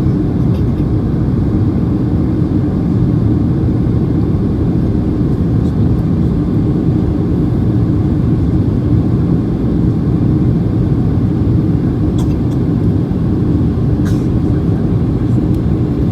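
Steady cabin roar inside a Boeing 737-800 in flight: airflow over the fuselage and its CFM56-7B engines, heard from a seat over the wing. A few faint clicks come near the end.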